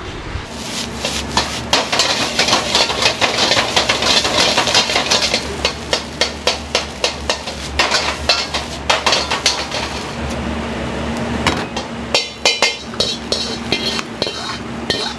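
Kitchen clatter: rapid metal knocks, clinks and scrapes of utensils against cookware, over a steady low hum.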